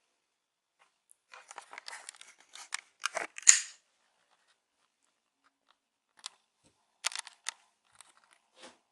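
Hands handling a laptop's display cable and connector: bursts of crackling and light plastic clicks, loudest about three and a half seconds in, with a few separate clicks near the end.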